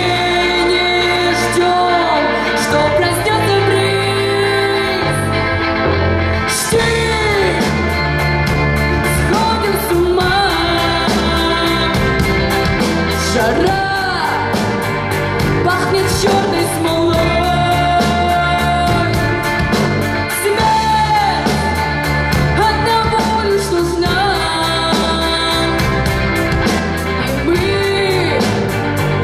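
A live rock band playing a song: a sung lead vocal over electric guitars, bass, keyboard and drums. The drums come in fully about seven seconds in and keep a steady beat.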